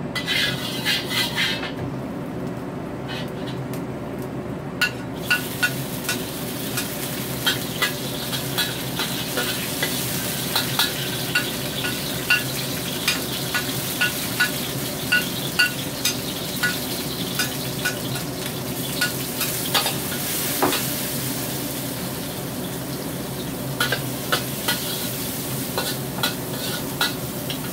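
Dried shrimp, garlic and chili sizzling in hot oil in a wok, being fried first to bring out the shrimp's aroma. A spatula scrapes and knocks against the wok over and over as they are stir-fried. The sizzle starts about five seconds in.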